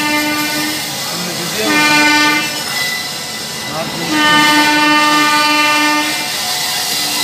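Electric train horn sounding in blasts: one ends under a second in, a short blast follows about two seconds in, and a longer one of about two seconds comes about four seconds in, over the running noise of the moving train.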